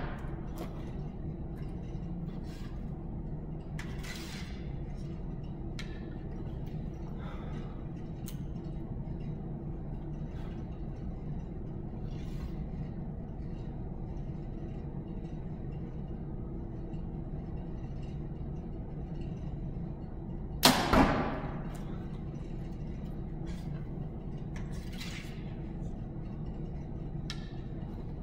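A compound bow (2014 PSE Dominator) shot about two-thirds of the way in: a sharp crack as the string is released, followed a fraction of a second later by a second, smaller impact as the arrow hits the target. Otherwise a steady low hum with faint small clicks.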